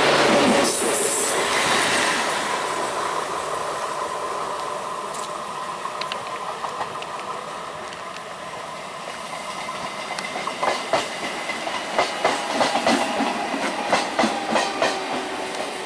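ICF electric multiple-unit local train running, its sound loud at first and fading away over several seconds. From about ten seconds in, another EMU passes close by, its wheels clicking over the rail joints in a quick, steady rhythm of paired clacks.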